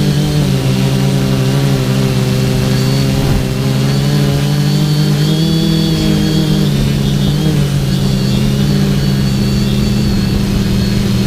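TBS Discovery quadcopter's brushless motors and propellers whirring in flight, several motor tones held steady with smaller rises and falls in pitch as the throttle changes.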